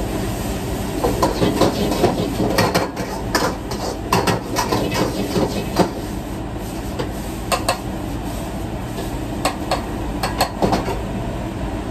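Restaurant wok burner and exhaust hood running steadily, with a metal ladle clanking and scraping against a steel wok as food is stir-fried. The clanks come thick in the first half, thin out in the middle, and return in a short cluster near the end.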